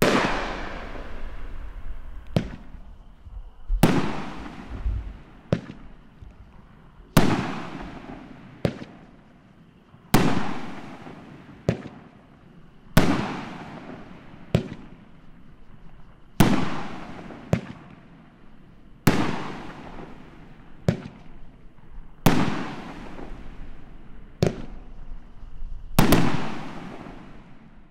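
Red Rhino 'Revolver' 500-gram, 9-shot firework cake firing its shots one by one: nine loud aerial bursts about three seconds apart, each with a long fading tail, and each but the first preceded about a second and a half earlier by a shorter, sharper launch report.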